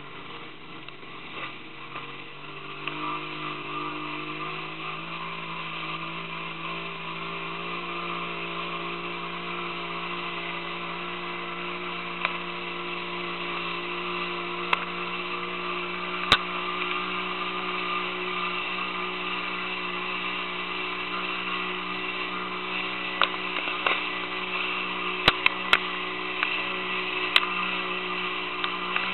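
Motorboat engine running under way, its hum rising in pitch about two to three seconds in as the boat speeds up, then holding steady, with water rushing past the hull and a few sharp clicks.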